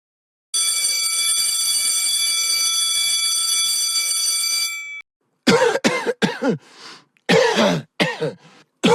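A steady high electronic tone, like an alarm beep, held for about four seconds and then cutting off. After a short gap come several short voiced coughs, each falling in pitch.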